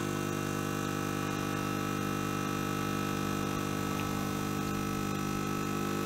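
Magister Stella Professional espresso machine's pump running steadily while an espresso shot extracts through the lever-operated E61 group head: an even, unchanging hum.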